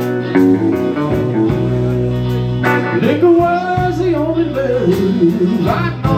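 Live band playing: electric guitar, electric bass and a drum kit with steady cymbal strokes, and a man's voice singing a wavering melody from about halfway through.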